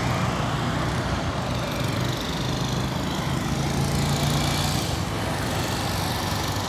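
A motor-vehicle engine running steadily with a low hum, over a wash of outdoor traffic noise.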